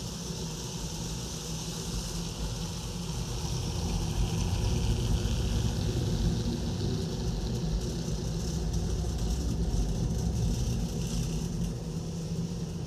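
Model trains running around a layout: a steady motor hum with wheels rumbling on the track, growing louder through the middle as a train runs closer.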